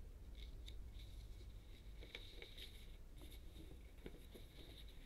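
Faint rustling of a paper instruction sheet being picked up and unfolded on a tabletop, with a few light taps.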